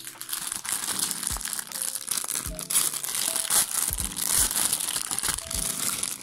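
Plastic packaging crinkling loudly as it is handled: a black poly mailer bag, then a clear plastic bag being pulled out and unwrapped. Background music with a steady beat plays underneath.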